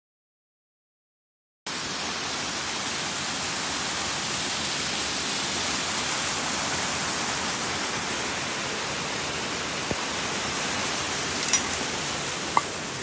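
Small waterfall rushing over rocks into a stream: a steady rush of water that starts suddenly about two seconds in.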